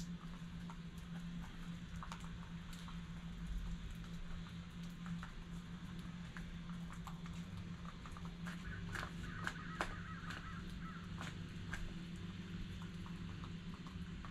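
Chickens and small birds pecking at grain scattered on the ground: many short ticks and taps, with soft bird calls about two-thirds of the way through, over a steady low hum.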